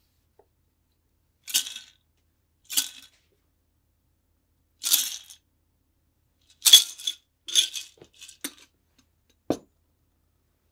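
Ice rattling inside a metal cobbler shaker in six short jolts as the last of the shaken cocktail is shaken out through the strainer into the glass. Near the end the shaker is set down on the bar with a single dull knock.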